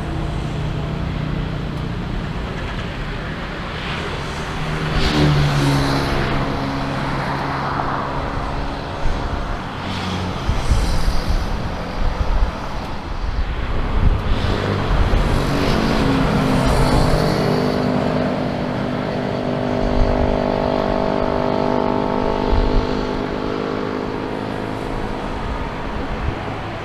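Steady engine noise from vehicles moving past, with a low rumble and several pitched tones that rise and fall slightly as they come and go, strongest about five seconds in and again from about seventeen to twenty-three seconds.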